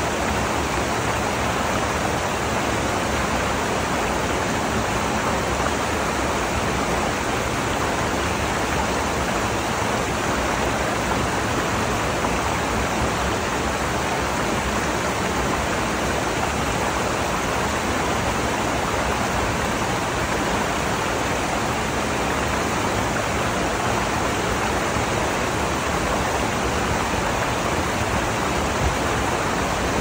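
Rocky stream running over stones below a waterfall: a steady, unbroken rush of water.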